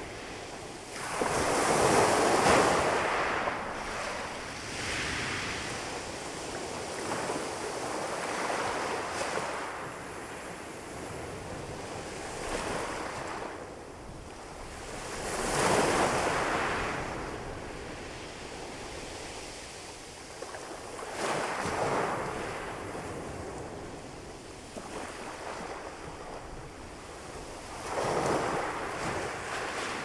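Calm sea waves breaking and washing up a pebble beach, swelling in every few seconds over a steady wash. The biggest surges come about two seconds in, around the middle, and near the end.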